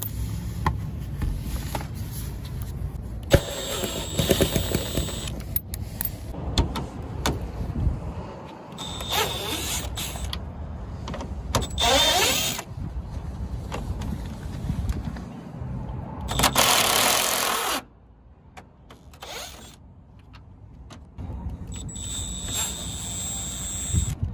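Cordless power driver with a socket extension running in several short whirring bursts, spinning out the screws that hold the bumper cover, with a steady low rumble behind it that drops away about three-quarters of the way through.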